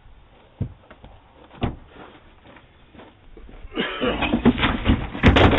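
A man falling on a front deck with grocery bags in hand, heard through a Ring doorbell camera's microphone: two single thuds, then just under four seconds in a loud jumble of thumps, clatter and bag rustling as he and the groceries hit the deck.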